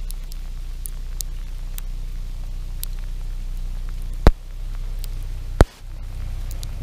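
Steady low rumble with scattered light ticks on a handheld camera's microphone, broken by two sharp knocks about a second and a half apart as the camera is handled and panned.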